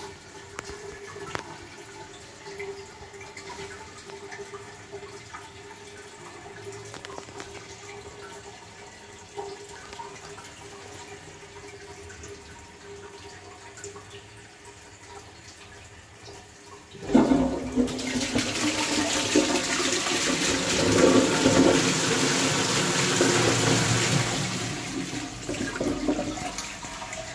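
Armitage Shanks Magnia low-level cistern flushing a Twyfords Classic pan. After a faint steady hum, the flush starts suddenly about two-thirds of the way in, and a loud rush of water runs for several seconds before easing near the end.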